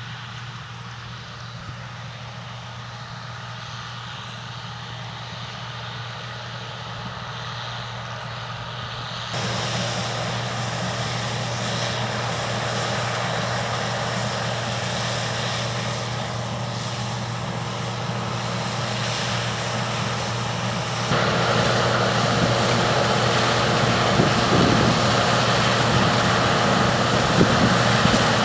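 Combine harvester's engine and machinery running steadily while shelling corn, a low hum under a broad mechanical noise. It grows louder across the stretch, with two sudden jumps in level about nine seconds in and about twenty-one seconds in.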